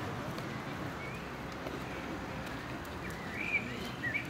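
A bird chirping briefly a few times over a steady background hiss of outdoor ambience.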